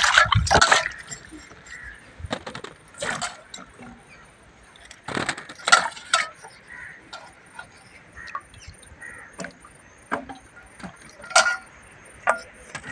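Hands swishing small striped wild melons (sendhiya) in a steel bowl of muddy water, a splash at the start, then scattered drips, small splashes and light knocks as the washed fruits are lifted out one at a time and set into a bamboo basket.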